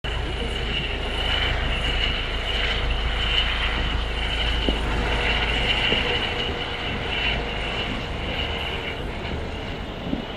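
Airbus H135 helicopter taking off and climbing away: turbine and rotor noise with a steady high whine over it. The low rumble eases about halfway through as the helicopter climbs off.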